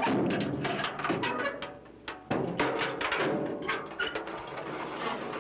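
Soundtrack music with busy, knocking percussion. It drops out briefly about two seconds in, then starts again.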